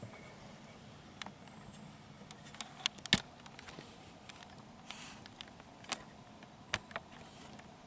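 Quiet outdoor background with scattered small clicks and snaps, the sharpest about three seconds in and two more near the end.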